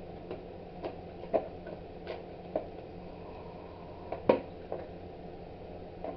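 Scattered light clicks and knocks, about eight of them, as a 1/10-scale plastic RC monster truck is handled and turned over; the sharpest knock comes a little past four seconds in.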